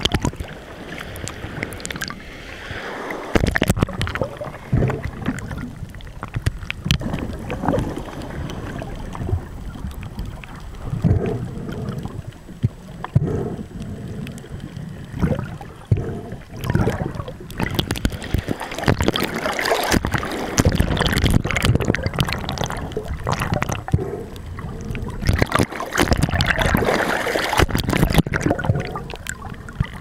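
Sea water gurgling and sloshing against an underwater camera housing as it moves at and just below the surface, in uneven surges with small splashes.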